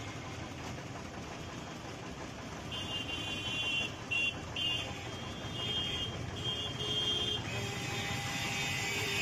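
Steady street traffic rumble with a run of short, high-pitched electronic tones starting about three seconds in, and a longer tone near the end.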